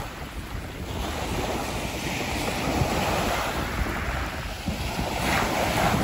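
Sea surf washing onto the shore, with wind buffeting the microphone as a low rumble. The surf swells louder near the end.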